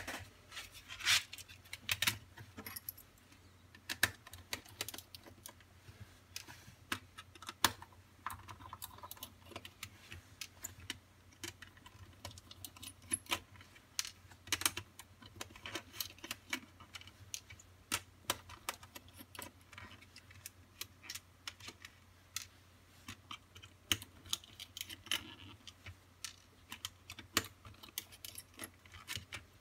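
Irregular small clicks and taps from handling a Kato HO turnout and undoing the tiny screws of its bottom cover with a precision screwdriver, the loose screws being set down one by one, over a faint steady hum.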